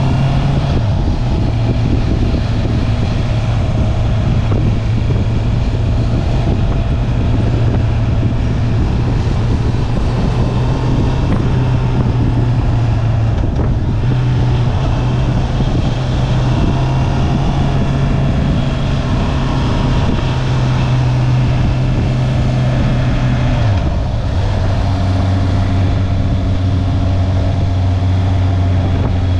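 Honda CB650R's inline-four engine, stock exhaust, running under way at steady revs with wind noise over the microphone. The engine note shifts pitch a few times: near the start, about halfway, and a drop a few seconds before the end.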